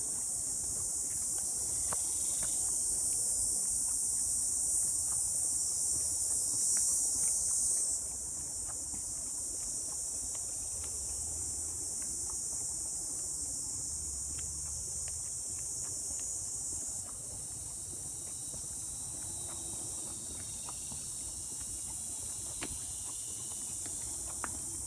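A steady high-pitched chorus of insects droning in the trees. It drops in level twice, about a third of the way through and again past halfway, with faint footsteps on the dirt trail beneath it.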